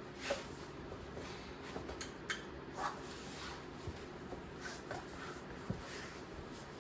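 Hunter Crown Canyon ceiling fan running on high, very quiet: a faint steady hum, with a few small clicks and rustles scattered through.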